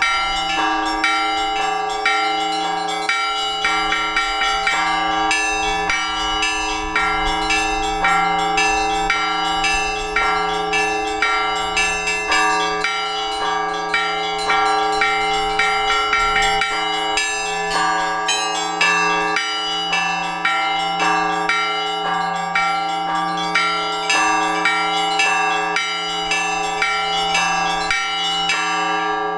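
Orthodox church bells rung together in a fast, rhythmic peal calling to the all-night vigil: quick repeated strikes of the small bells over the steady hum of the larger bells. The striking stops near the end and the bells ring on.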